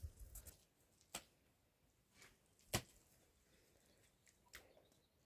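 Near silence, broken by a few isolated faint taps and clicks, the sharpest a little under three seconds in.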